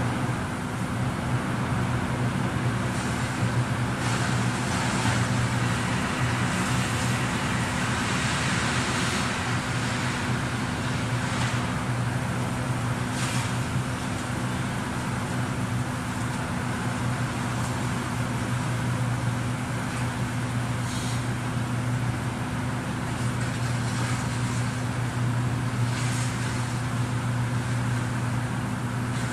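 Heavy diesel truck engine running steadily, with a few faint clanks of scrap metal now and then.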